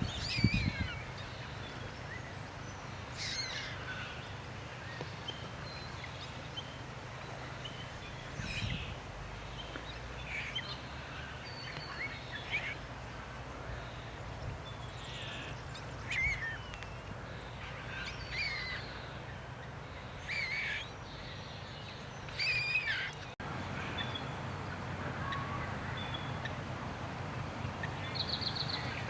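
Wild birds calling on and off, with short chirps and sweeping calls every few seconds and a quick rapid trill near the end, over a steady low background hum.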